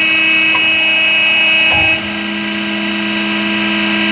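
Bridgeport/Harig 618 E-Z Surf CNC surface grinder running with its grinding-wheel spindle turning, a steady machine hum. A high whine over it cuts off about two seconds in and the hum shifts lower, as the machine finishes its program and returns home.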